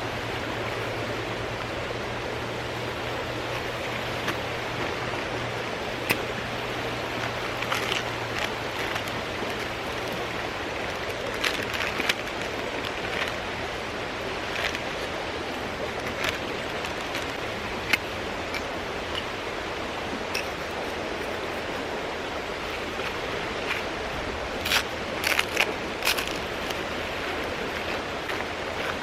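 Mountain stream rushing steadily, with scattered short clicks and knocks over it and a small cluster of them near the end.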